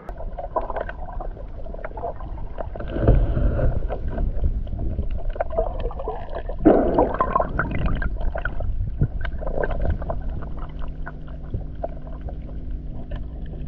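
Water sloshing and rumbling around a camera held under the surface, with scattered clicks, a faint steady hum, and louder swooshes about three and seven seconds in.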